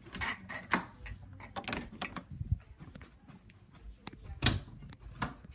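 Irregular knocks, rubs and clatter from a handheld camera being swung about and jostled, with a louder knock about four and a half seconds in.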